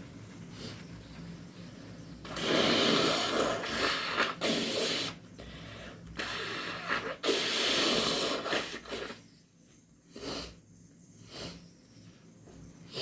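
A person with hayfever blowing a congested nose hard: two long, wet blows a few seconds apart, with shorter snorts between, then a few short, quieter sounds.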